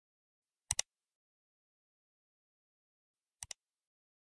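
Two computer mouse-click sound effects, each a quick double click: one about a second in and one near the end.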